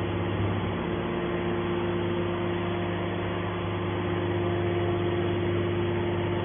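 Hydraulic scrap aluminium baler's motor and pump running with a steady, unchanging hum.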